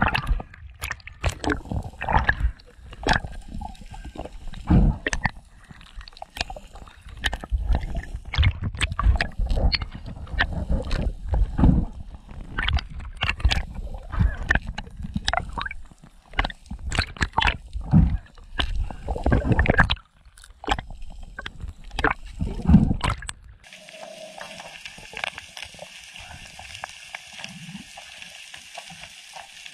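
Underwater recording of water movement and handling: irregular clicks, knocks and low thumps. About 23 seconds in it cuts to a steady hiss.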